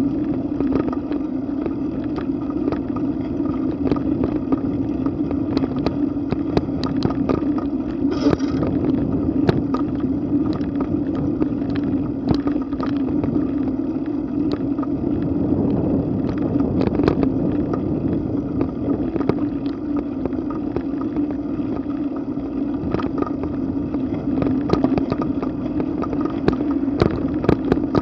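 Riding noise from a moving bicycle: a steady hum of tyres on pavement and wind on the microphone, with frequent small clicks and rattles.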